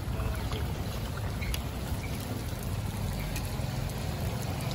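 Steady low rumble of street background noise, with a few faint clicks.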